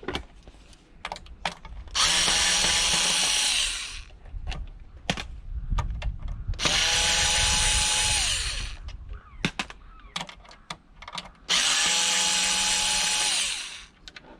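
Cordless drill-driver run three times for about two seconds each, its motor whine steady and then dropping in pitch as it stops, backing screws out of the heater's casing. Light clicks and knocks of handling between runs.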